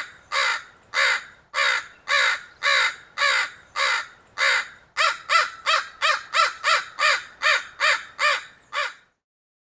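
Crow cawing in a long series of harsh caws, at first a little under two a second, then speeding up to about three a second for the last four seconds before stopping abruptly.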